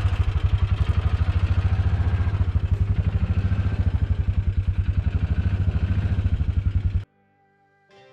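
An engine running steadily with a fast, even pulsing beat, cutting off suddenly about seven seconds in. Faint guitar music comes in near the end.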